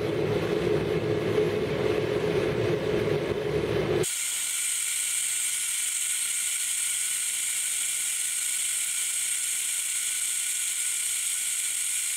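Small gas forge being lit: the burner catches with a loud, low, rough flame noise for about four seconds, then changes abruptly to a steady high hiss of the burner running as the firebrick chamber heats up.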